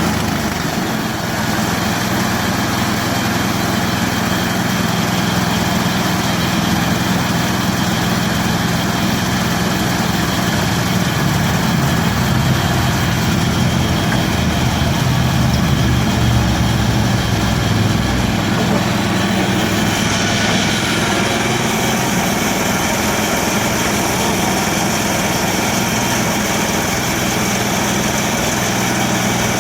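Harbor Freight portable bandsaw mill running, its gasoline engine at a steady speed as the blade saws through an elm log; the higher-pitched part of the sound changes about two-thirds of the way through.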